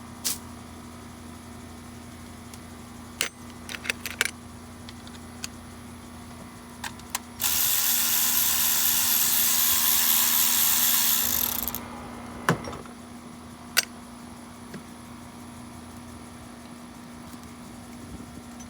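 Metal tools clinking against the engine a few times, then a steady spraying hiss for about four seconds that fades off, then two more sharp clinks.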